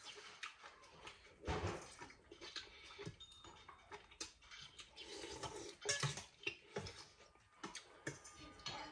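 Faint, scattered clinks and knocks of dishes and utensils being handled.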